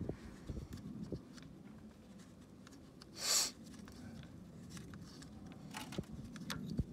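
Light scraping and clicking of a spark plug being threaded in by hand on a socket extension down the plug well of the engine. A few sharp metal clicks come near the end, and a short rushing noise comes about three seconds in.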